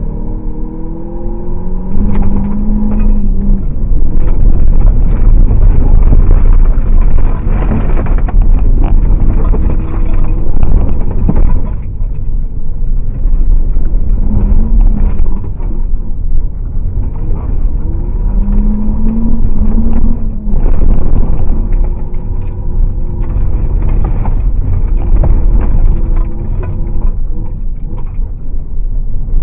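A car's engine driven hard from inside the cabin, its pitch rising and falling again and again with the throttle and gear changes, over a loud rough roar of road and wind noise.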